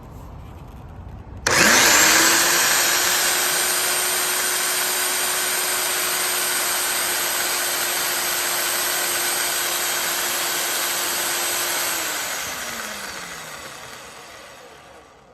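REX Sparkle 130 diamond core drill's electric motor switched on about a second and a half in. It spins up quickly to a steady whine and runs evenly, then is switched off near the end and winds down over a few seconds. This is a simple running check of the drill.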